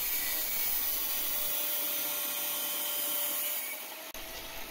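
Angle grinder with an abrasive cutoff disc, mounted under a table saw, cutting through steel angle iron: a steady grinding hiss with a faint whine. It falls away near the end as the cut finishes.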